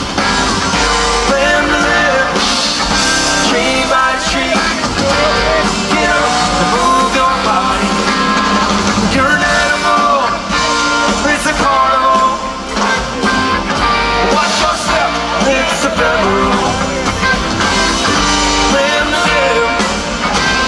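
Live rock band playing an extended jam through a concert sound system: electric guitar, drums, bass and keyboards, continuous and loud.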